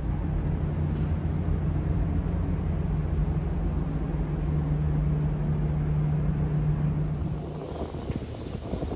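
A vehicle's engine running steadily with a constant hum and rumble; it fades away about eight seconds in.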